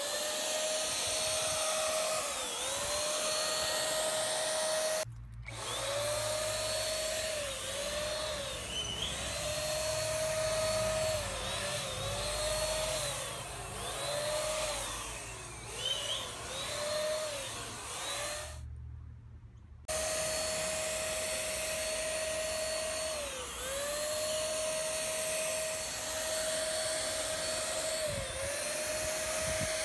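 Handheld electric paint spray gun running while spraying clear polyurethane: a steady whine whose pitch dips briefly again and again, with two short breaks.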